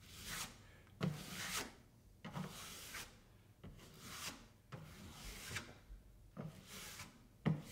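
Metal drywall taping knife scraping and smoothing joint compound on the wall, in a series of short strokes roughly one a second.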